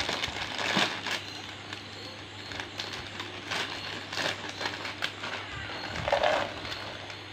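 A plastic snack packet crinkling in irregular crackles as it is pulled and torn open by hand. About six seconds in, puffed corn snacks rattle out of it into a plastic bowl.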